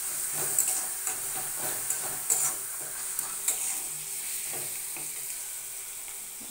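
Onion-tomato masala sizzling in oil in a kadai while a steel spatula stirs it and scrapes the pan. The scrapes come thick in the first few seconds and thin out after that.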